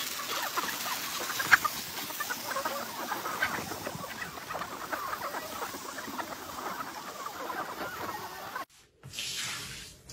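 A large flock of chickens clucking and calling all at once, many birds overlapping, crowding in to be fed. It cuts off abruptly near the end and gives way to a brief whoosh.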